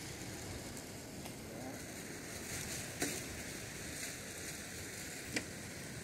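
Steady hiss of surf and wind on a sand beach, fizzing in patches, with two sharp clicks, one about halfway through and one near the end.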